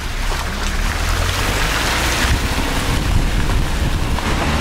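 A vehicle running steadily with a low engine hum, with wind noise over it.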